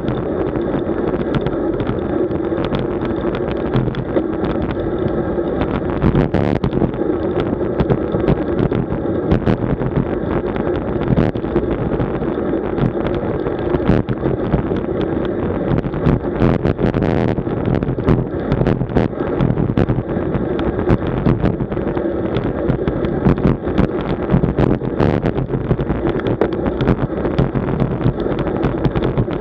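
Wind buffeting the microphone of a camera on a road bicycle during a ride: a steady, muffled rushing noise, broken by frequent small knocks and rattles from the road.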